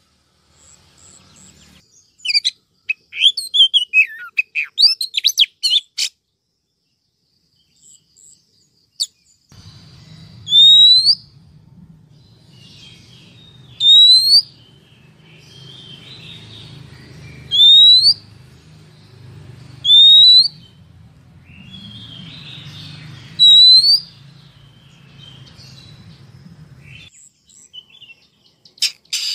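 Female Oriental magpie-robin calling, the kind of female call played to stir males into singing: first a quick burst of varied chirps, then, from about ten seconds in, five loud rising calls three to four seconds apart over softer twittering and a low hum.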